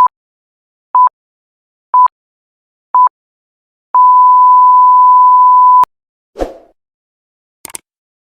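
Countdown beep sound effect: short, high, single-pitch beeps once a second, then one long beep of about two seconds that cuts off suddenly. A low thud follows, then a couple of faint clicks near the end.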